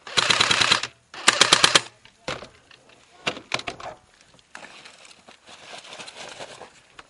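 Airsoft gun firing two rapid full-auto bursts, one right at the start and one about a second later, followed by a few scattered single pops and clicks.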